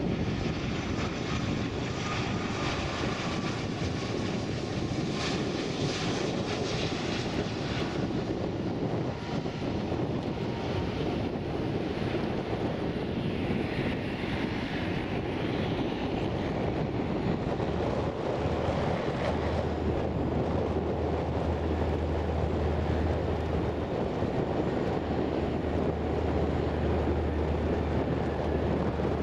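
Jet engine noise from an Airbus A330-243, whose engines are Rolls-Royce Trent 700 turbofans, coming in to land: a high whine over steady engine noise as it passes close on final approach, continuing through touchdown and rollout. A steady low rumble joins about two-thirds through.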